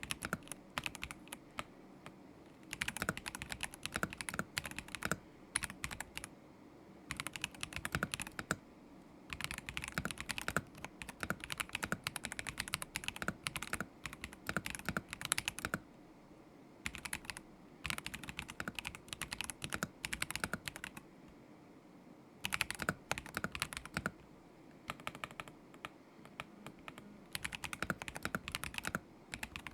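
Typing on a KZZI K75 Pro mechanical keyboard with linear switches: rapid runs of key clicks in bursts of a few seconds, broken by short pauses.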